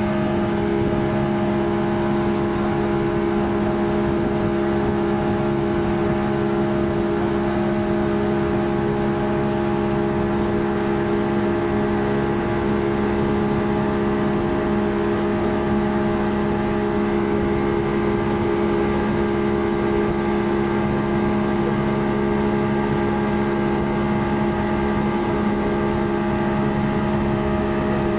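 Speedboat engine running at a steady speed while towing, a constant drone over the rush of the churning wake.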